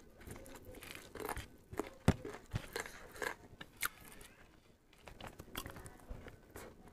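A person eating rice and curry by hand: fingers working food on a plate and chewing, heard as scattered small clicks and crunches.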